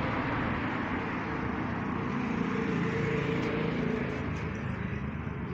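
Street traffic: a car's engine and tyres passing on the road, swelling to a peak about three seconds in and then fading.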